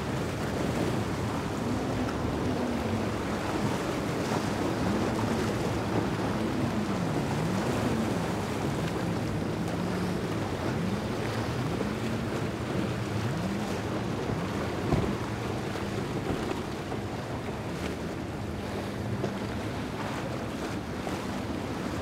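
Outboard motor on a small center-console boat running at speed through choppy water, its pitch rising and falling over and over, over a steady rush of waves and wind on the microphone.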